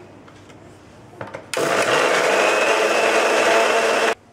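Electric mixer grinder with a steel jar blending boiled raw-mango pulp with sugar, spices and mint. After a couple of clicks, its motor starts about a second and a half in and runs with a loud, steady whir, then cuts off suddenly near the end.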